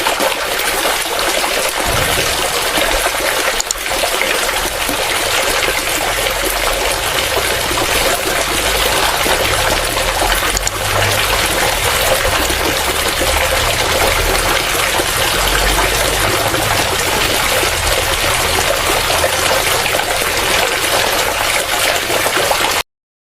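Water from a small model water pump gushing and splashing steadily, cutting off abruptly near the end.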